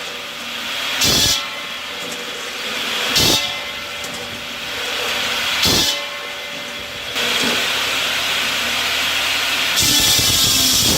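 Wood-processing machine running with a steady hiss, surging louder three times about every two seconds and then holding loud over the last few seconds.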